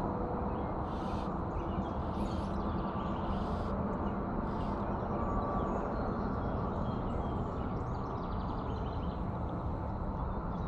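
Outdoor lakeside ambience: a steady low rumble, with short high hissing swishes about once a second over the first few seconds and faint chirps later on.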